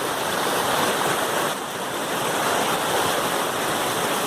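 River water rushing steadily over and around rocks in a fast current, a constant dense splashing hiss.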